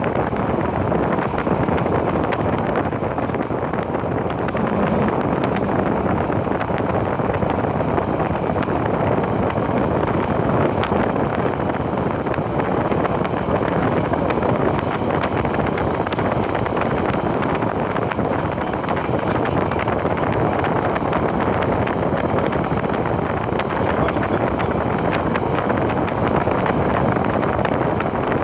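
Passenger train running at speed, heard from inside the carriage: a steady, loud noise of wheels on track that holds even throughout.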